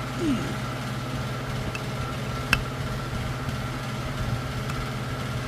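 A steady, low mechanical hum, with two sharp clicks: one about halfway through and one at the end.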